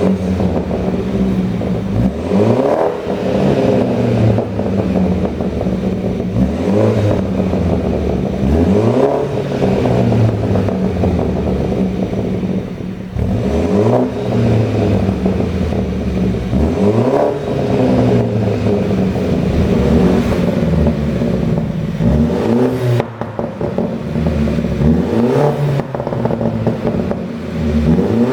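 BMW 520i's turbocharged four-cylinder engine revved again and again, each rev rising and then falling back to idle. Popping and crackling from a pop-and-bang tune comes through the exhaust as the revs drop.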